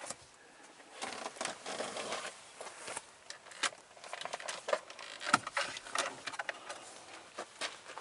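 Handling noise in a car cabin: rustling and irregular light clicks and knocks as the handheld camera is moved around the dashboard and steering wheel, with a sharper knock about five seconds in. No engine running.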